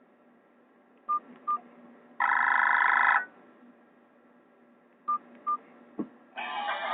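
Nokia 216 mobile phone's keypad beeps: two short beeps about a second in and two more about five seconds in, with a dense one-second tone from the phone's speaker between them. Just before the end, a click is followed by the next ringtone starting to play.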